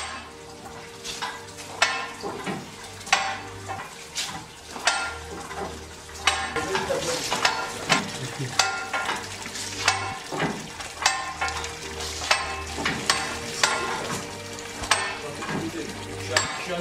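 Ratchet of an old wooden basket wine press clacking as its lever is worked, one sharp click about every two-thirds of a second. Underneath is a steady wash of freshly pressed grape juice streaming and splashing into a tub.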